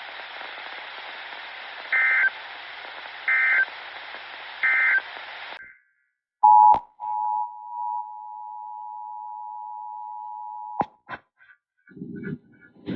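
Radio static with three short EAS data bursts about 1.4 seconds apart: the end-of-message tones closing the alert. After a click, the two-tone EAS attention signal sounds steadily for about four seconds, then cuts off with a few clicks.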